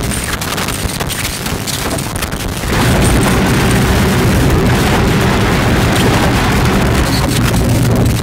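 Harsh experimental noise soundtrack: a dense wall of distorted noise with a heavy low rumble and constant crackling, stepping up louder nearly three seconds in.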